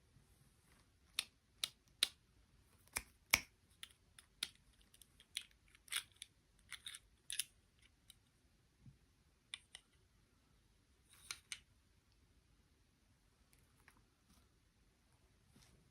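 Irregular sharp clicks and snips, about twenty of them, from handling small hard objects, loudest about three seconds in and stopping about eleven seconds in.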